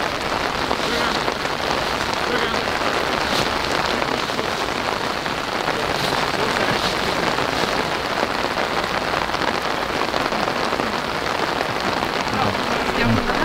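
Steady hissing noise.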